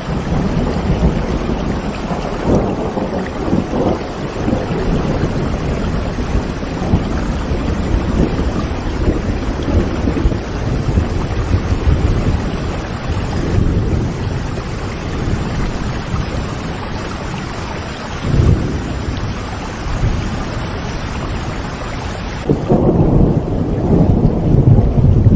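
Steady rain with rolling thunder, the low rumbles swelling and fading; a heavier rumble comes in near the end.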